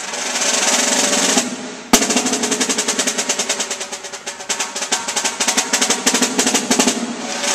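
Snare drum played with a pair of sticks: a roll that swells for about a second and a half, a sharp accented stroke at about two seconds, then a long run of fast strokes that grow and fade in loudness, ending in another roll near the end.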